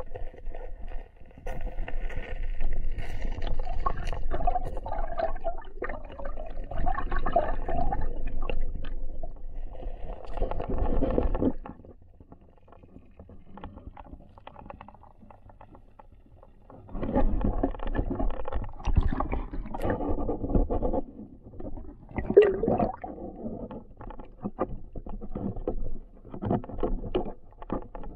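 Muffled rumbling and gurgling of river water moving against an underwater action camera's housing, in uneven surges with scattered small knocks, dropping away for a few seconds midway.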